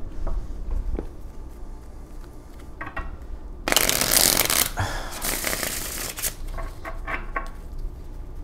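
A deck of tarot cards being shuffled by hand: a loud rustling shuffle lasting about two and a half seconds from near the middle, with a few light card taps and clicks before and after.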